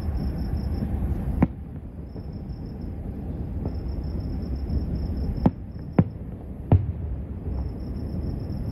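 Distant fireworks finale: a steady low rumble with sharp bangs, one about a second and a half in and three close together a little past halfway. Crickets chirp in pulsing high trills throughout.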